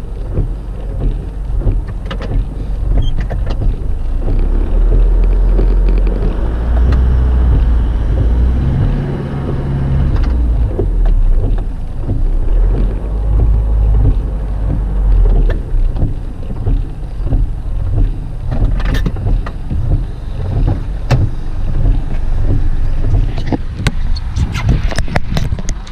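Four-wheel-drive vehicle's engine running loudly, working hardest through the middle, with scattered knocks and rattles.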